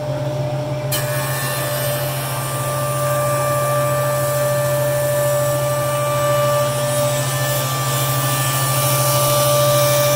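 Powermatic 54HH 6-inch jointer running, its helical cutterhead planing the edge of a rough board. A steady machine hum is joined about a second in by a high whine and hiss of cutting, which grows a little louder near the end.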